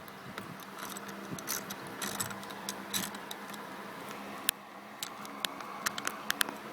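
Socket ratchet clicking in short irregular runs, with a quick burst of clicks near the end, as the steering-wheel retaining nut of a GM truck column is turned counter-clockwise to loosen it. A faint steady hum sits underneath.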